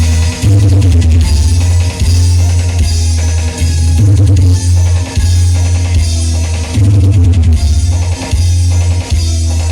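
Loud music with drums and a heavy, sustained bass, played through a sound system under test, the bass phrase repeating about every three seconds.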